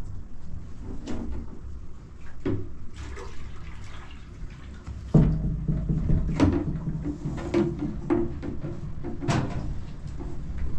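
Water poured from a green plastic container into a plastic jug. The pouring starts suddenly about halfway in and runs for several seconds. Light knocks and clicks of the containers being handled come before and during it.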